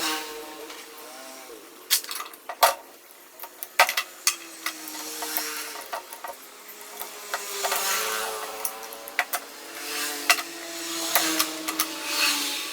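Scattered metal clinks and knocks of hand tools and parts during disassembly of a Perodua Viva manual gearbox, over a faint wavering hum.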